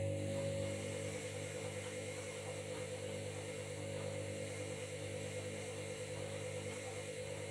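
Washing machine motor running with a steady hum and whine, the sound holding level with a slight quick pulsing.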